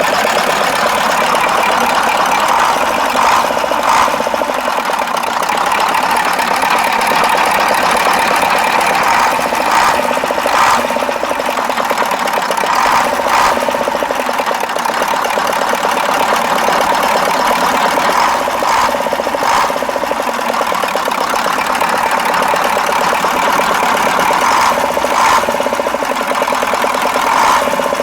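KamAZ truck's V8 diesel engine running steadily at idle after a repair, with a few brief sharper noises along the way; the owner judges it to be running normally with the earlier engine knock gone.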